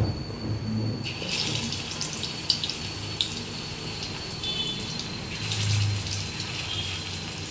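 Masala-marinated fish pieces sizzling in hot oil in a kadai, the hiss starting about a second in as the first piece goes in, with sharp crackles and pops.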